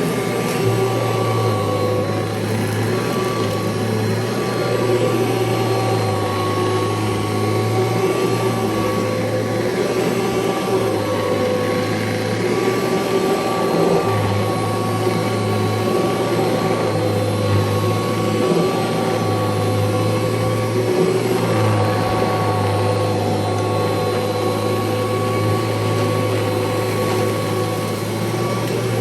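1989 Kirby Legend II upright vacuum cleaner running on carpet: a steady motor whine over a low hum that wavers slightly every second or two.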